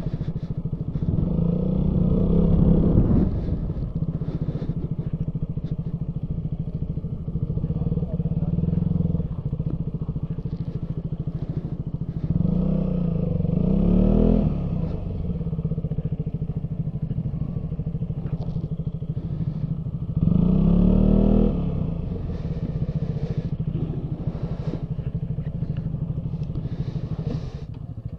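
Motorcycle engine running at low speed, with the throttle opened three times, the pitch rising each time before it drops back.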